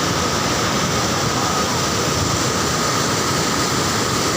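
Rain-swollen waterfall with floodwater pouring down at full force: a steady, unbroken rush of water.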